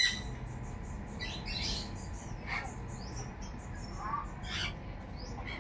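Birds chirping in short, scattered calls over a steady low background noise.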